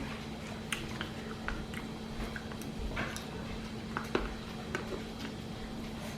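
A person chewing chicken salad close to the microphone, with scattered wet mouth clicks and smacks.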